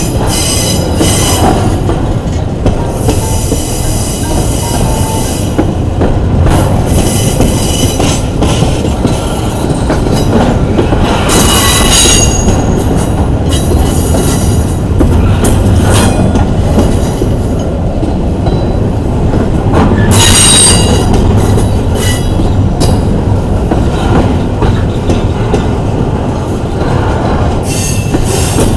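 Intermodal freight cars rolling slowly by with a steady heavy rumble, their steel wheels squealing against the rail in repeated high-pitched bursts, loudest about twelve and twenty seconds in.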